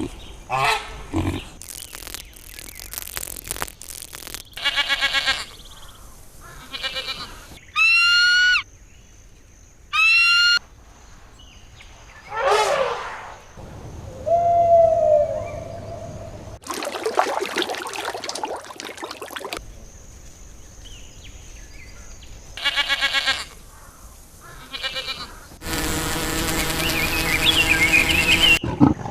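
A run of different animal calls, one short clip after another, each starting and cutting off abruptly.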